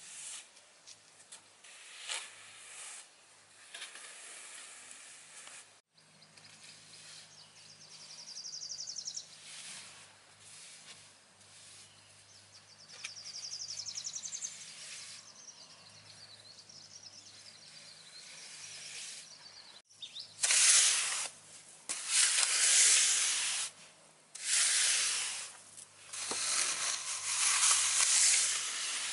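Steel hand trowel scraping and smoothing freshly poured wet concrete, in repeated strokes, with several long, loud sweeps in the last third.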